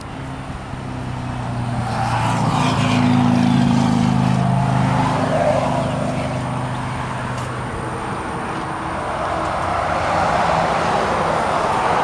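A motor vehicle driving past: its engine hum and road noise swell to a peak about three seconds in and then fade away, followed by a second swell of road noise near the end.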